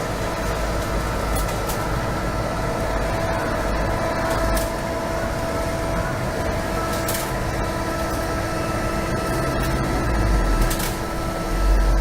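A steady machine hum with a low rumble and a few fixed tones, and a few faint clicks.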